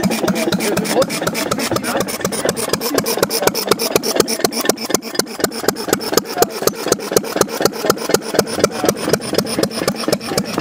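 Small antique stationary gas engines running with a steady, rapid exhaust beat.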